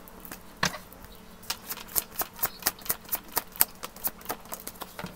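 Tarot deck handled and shuffled by hand: one sharp card click, then a quick run of card clicks and snaps at about four a second.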